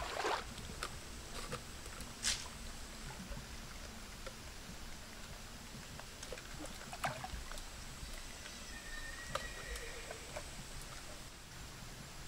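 Water sloshing around wading legs in a shallow muddy creek fades out at the start, leaving a low, steady outdoor background with a few scattered small clicks and rustles of hands working in the muddy bank.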